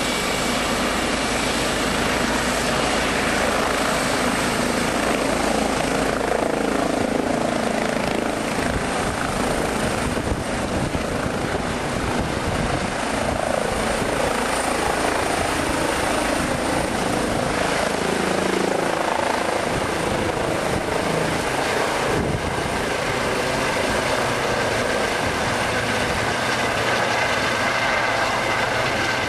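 Eurocopter EC135 rescue helicopter running at take-off power as it lifts off, hovers and climbs away: a steady loud rotor and twin-turbine noise with a high whine.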